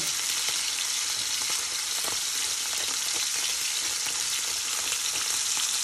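Beef tenderloin (filet mignon) medallions searing in a very hot saute pan: a loud, steady sizzle with scattered crackles and pops from the hot fat.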